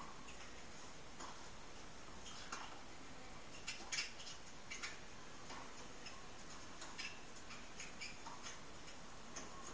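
Tennis racquets striking the ball in a baseline rally: a string of short sharp pops about a second apart, heard faintly through a television speaker.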